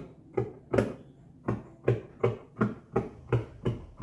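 Scissors snipping through lace fabric in a steady run of cuts, about three a second, with a short pause about a second in.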